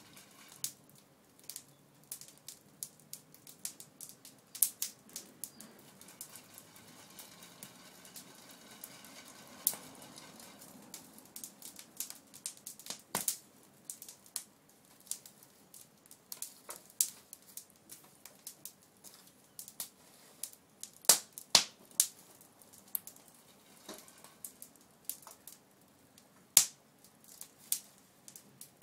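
Open wood fire crackling under a pan of roasting chestnuts, with sharp, irregular pops and snaps; the loudest pops come about three-quarters of the way through.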